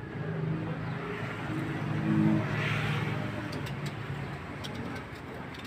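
A motor engine hum that swells to its loudest about two seconds in and then slowly fades, with a few faint clicks near the end.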